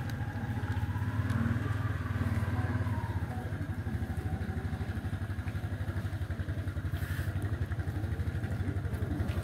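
An engine running steadily, with a fast, even low throb.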